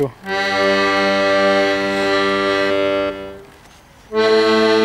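Accordion sounding a long held chord that fades out after about three seconds, then a second held chord starting about four seconds in.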